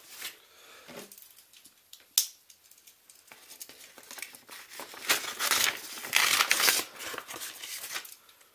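A parcel being opened by hand: packaging tearing and crinkling, with a sharp click about two seconds in and the loudest ripping and rustling between about five and seven seconds in.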